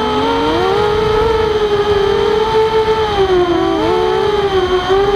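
Walkera Rodeo quadcopter's motors and propellers whining, several pitches held fairly steady, rising slightly at the start and dipping briefly about three and a half seconds in as the throttle changes.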